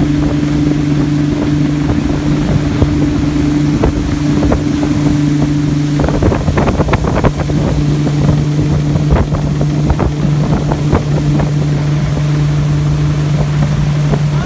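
Rinker ski boat's engine running at a steady drone while pulling a wakeboarder, with wake water rushing and wind buffeting the microphone. From about six seconds in, the drone dips for a couple of seconds while irregular gusts and splashes come through.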